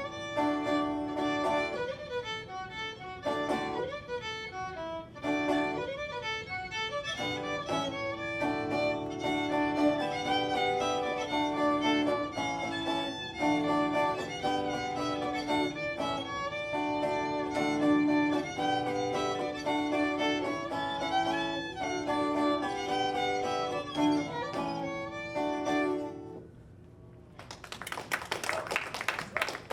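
Fiddle playing a traditional folk tune, note after note in quick succession; it stops a few seconds before the end, and after a short pause the audience starts clapping.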